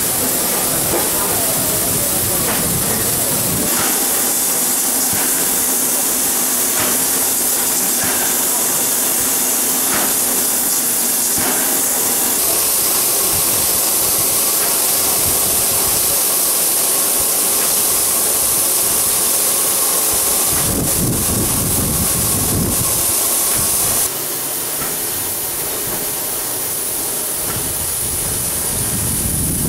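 Steam hissing steadily from ČSD class 464.2 'Rosnička' steam tank locomotive 464.202 standing in steam: a loud, high hiss. The hiss drops to a lower level about three-quarters of the way through, and a deeper rumble comes in twice in the last third.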